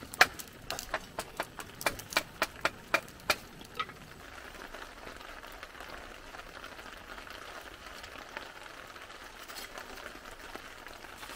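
Lump charcoal burning in a metal chimney starter, popping and crackling with about a dozen sharp cracks in the first four seconds, then a steady, quieter hiss of the fire.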